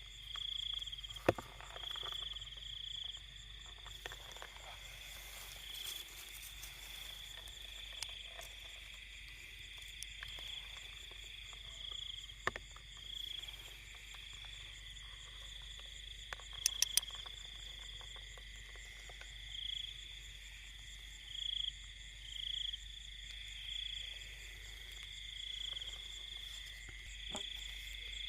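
Chorus of frogs and insects such as crickets: a steady high trill with short calls repeating every second or two. A few sharp clicks cut in, including a quick run of three about two-thirds of the way through.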